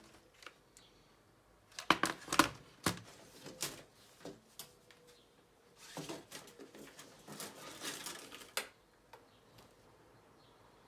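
Handling noise from the parts of a disassembled laptop: a cluster of sharp plastic clicks and knocks about two seconds in, then a stretch of rustling and scraping that ends in a last click.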